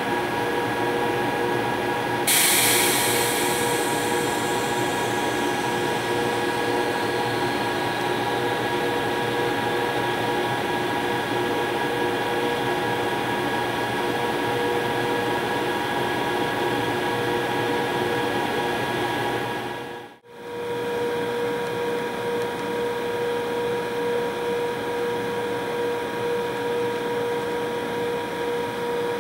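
British Rail Class 92 electric locomotive standing with its pantograph raised, its onboard machinery humming steadily with several fixed whining tones. A little over two seconds in, a sudden hiss of air starts and fades away over a couple of seconds. The hum breaks off for a moment about two-thirds through, then goes on.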